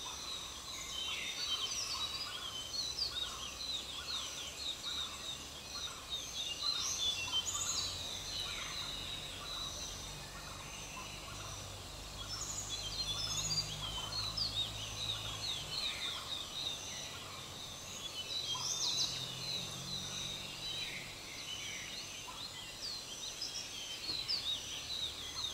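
A dense chorus of birds chirping and chattering, many short high-pitched calls overlapping one another, over a faint low hum.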